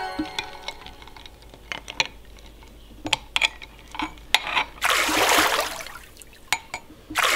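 Metal spoon clinking against ice cubes and a glass bowl of ice water, with scattered sharp clicks. About five seconds in, the water swishes and sloshes loudly as the spoon dips in, and it sloshes again near the end.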